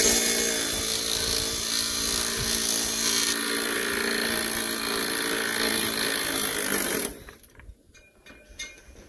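A power tool running steadily with a high hiss, which cuts off suddenly about seven seconds in. After that come faint clinks of loose saw chain being handled.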